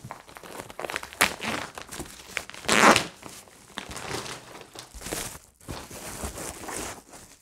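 Plastic wrapping around vacuum-packed foam panels crinkling and tearing as it is pulled open by hand, in irregular crackles with one louder burst about three seconds in.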